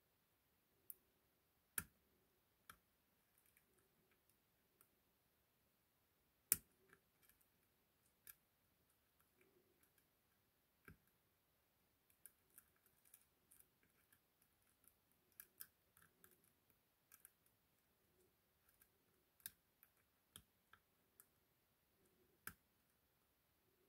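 Faint, irregular metallic clicks of a lock pick and tension wrench working the pins of an ASSA 6000 lock cylinder, with two sharper clicks about two and six and a half seconds in.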